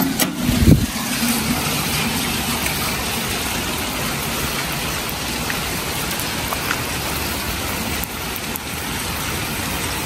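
Heavy rain falling steadily, an even rushing hiss with no break. A brief low thump of handling in the first second.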